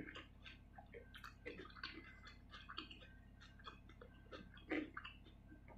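Close-miked chewing by a person eating: many small, irregular wet mouth clicks, with a louder cluster near the end.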